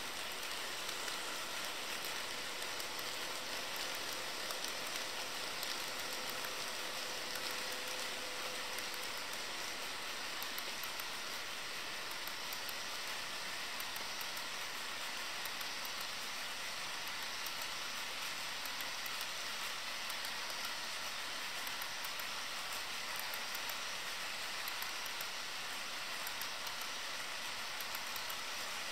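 HO scale model freight train rolling past on its track: a steady rushing hiss from the cars' wheels on the rails, with faint rapid ticking.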